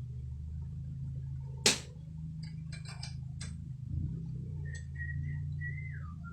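Rebuilt Mitsubishi 4G13 inline-four running at a steady idle, with one sharp loud click about a second and a half in and a few lighter clicks after it. Short high chirps come in near the end.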